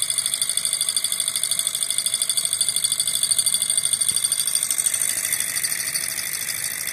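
Small alpha-type hot-air Stirling engine model running, its pistons and flywheel making a fast, even mechanical clatter of many ticks a second, a little quieter near the end.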